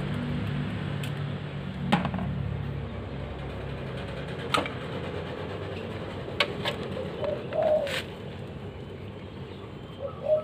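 Small steel carburetor screws and parts clicking and tapping as they are handled and set down on a metal paint-can lid, a few separate sharp clicks. A bird coos in the background about three quarters of the way in and again at the end.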